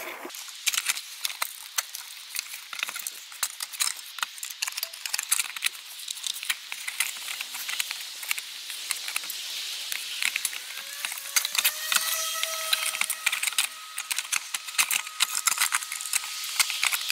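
Rapid small clicks and rattles of a round halogen auxiliary lamp's lens-and-reflector unit being handled and pressed into its plastic housing, over a steady hiss.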